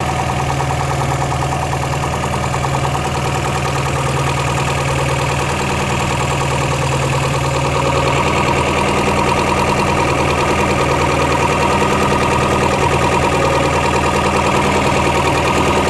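3.0-litre engine idling steadily with a rapid, even knock. The mechanic can feel it hitting into the valve cover but does not yet know the cause.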